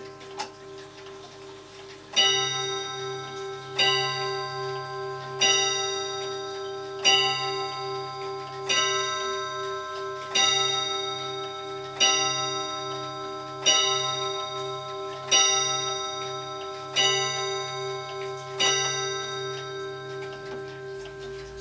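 Vintage German grandfather clock striking the hour: eleven evenly spaced strikes about one and a half seconds apart, each ringing on into the next, over the clock's ticking. A small click comes just before the strikes begin.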